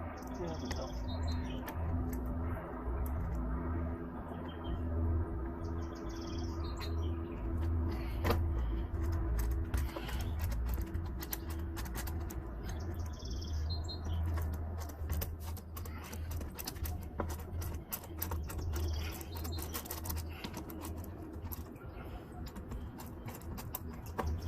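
Birds chirping now and then, short calls every few seconds, over a steady low rumble with many scattered sharp clicks and knocks.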